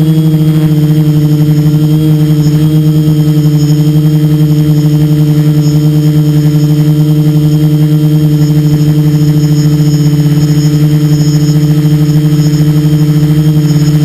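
Quadcopter's electric motors and propellers humming at a steady pitch, loud and close from the camera mounted on the craft, with a fast flutter in loudness.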